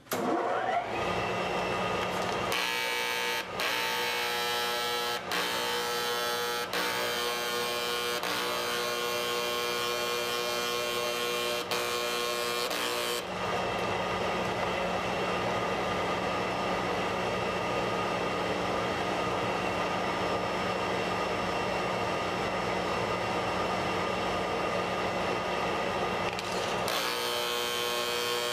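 Stain-removal spotting machine running with a steady hum and whine. Long hissing blasts from its spray gun cross the fabric a few seconds in, with short breaks, and start again near the end.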